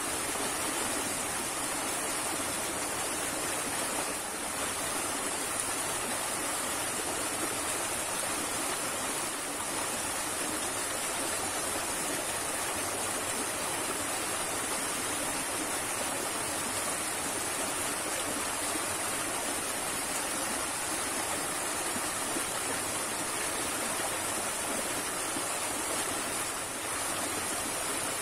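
Steady rushing of a fast, swollen small river spilling over rocks in a short cascade.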